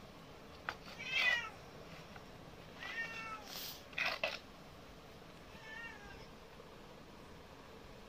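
A cat meowing three times, short calls that rise and fall in pitch, the last one fainter. Between the meows come a few sharp plastic clicks and knocks as the parts of a plastic back stretcher are pressed together.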